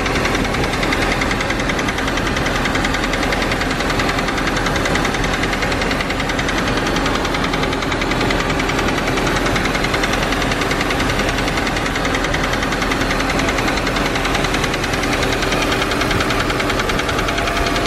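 Audi A4 B5 engine idling with a steady, rapid knocking. It sounds like rod knock, but the owner thinks it is the timing chain at the back of the engine, probably worn from running low on oil.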